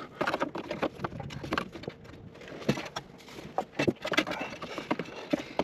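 Irregular plastic clicks and knocks of hands working the safety-lock electrical plug on an EVAP vent valve, trying to release and unplug it.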